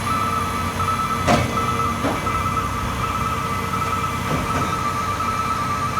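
Fire truck's engine running steadily with a rapid repeating electronic beep over it, and a short sharp sound about a second in, a weaker one shortly after.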